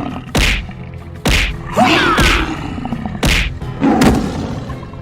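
Animated fight sound effects: a run of about six heavy hits and thuds, roughly one every half second to second, over background music, with a short gliding animal-like cry around the middle.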